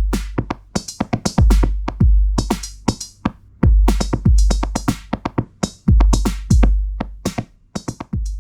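Elektron Digitakt drum machine playing an electronic beat: deep kick drums with a long low boom, mostly struck in pairs, over quick clicking percussion hits.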